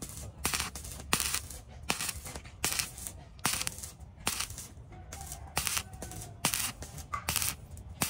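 Repeated rasping strokes, about two a second, over a low steady hum.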